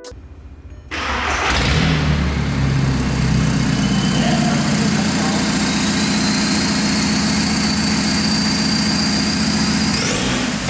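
A car engine starts with a sudden loud catch and settles into a steady run. A high whine above it rises slowly in pitch, then shoots up sharply near the end.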